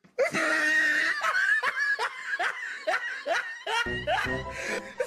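Repeated laughter over background music, with a low bass beat coming in about four seconds in.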